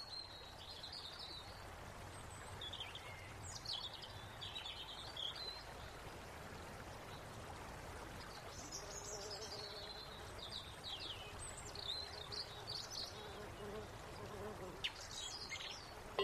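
Small birds chirping in short, scattered calls over a faint steady hiss of outdoor background noise.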